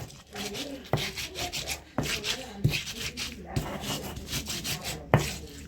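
Scraping or rubbing noises with sharp knocks about once a second.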